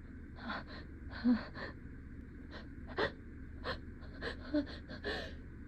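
A person's short, catching gasps and breaths, a dozen or so at uneven spacing, some with a little voiced "ah". It is the build-up to a sneeze that they are trying to hold back.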